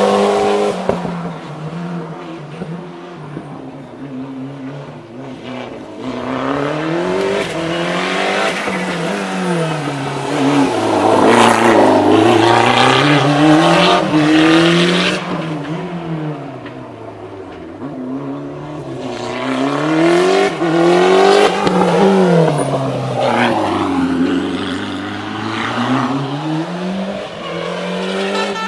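Historic rally car's engine revving hard and dropping back again and again as it accelerates and brakes through a tight course, the pitch climbing and falling every two to three seconds.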